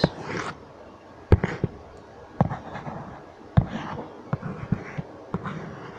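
Stylus tapping on a tablet screen during handwriting: several sharp, irregular ticks over a faint hiss.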